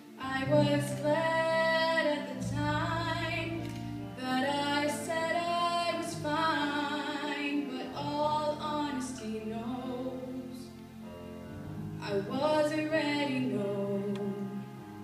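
A female solo voice singing a slow song in held, wavering phrases with vibrato, over a soft held instrumental accompaniment.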